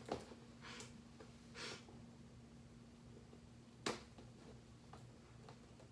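Faint sounds of tool packaging being handled: a few sharp clicks, the loudest about four seconds in, and two short hissing rustles near the start, over a low steady hum.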